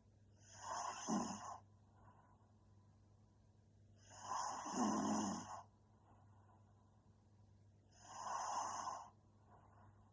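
A young woman snoring in her sleep: three snores, each about a second long and spaced about four seconds apart, the middle one the longest.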